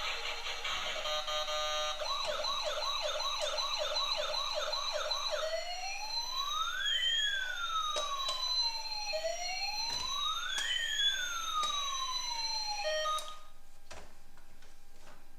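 Toy emergency vehicle's electronic siren running through its patterns. It starts with a fast warble, changes about two seconds in to a quick yelp of about three rising sweeps a second, then plays two slow wails that rise and fall. It cuts off near the end.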